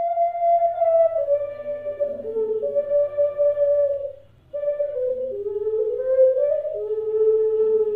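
Wooden alto C ocarina playing a slow melody of held, pure notes that step mostly downward, with a short break for breath about halfway through, ending on a long held low note.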